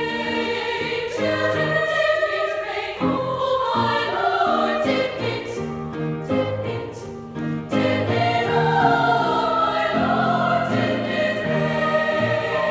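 Women's choir singing a gospel spiritual in full harmony, with piano accompaniment.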